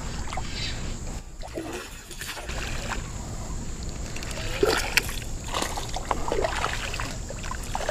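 Hooked smallmouth bass thrashing and splashing at the water's surface as it is fought on a spinning rod, with a few sharp splashes, the loudest about five seconds in.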